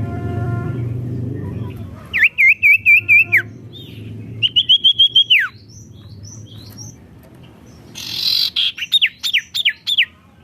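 A songbird singing loud, clear whistled phrases: a looping warbled phrase about two seconds in, a second looping phrase that ends in a falling whistle, and near the end a quick series of downward-sweeping notes. A low steady rumble lies under the first couple of seconds.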